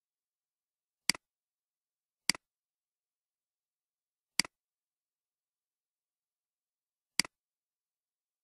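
Four computer mouse clicks at uneven intervals, each a quick double tick of button press and release, with dead silence between.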